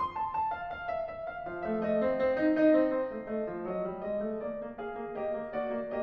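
Background piano music: a gentle melody of single notes moving stepwise over held lower notes.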